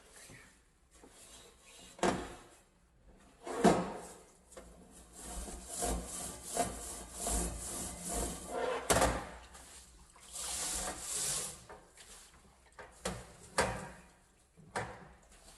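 Brush scrubbing a dirty kitchen stove in uneven bursts of strokes, broken by several sharp knocks, the loudest about four and nine seconds in.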